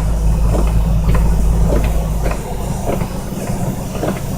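Inside the cab of a 1987 Jeep Wrangler YJ driving through deep snow: the engine and drivetrain run steadily with a deep rumble that eases off about two and a half seconds in, with scattered short knocks.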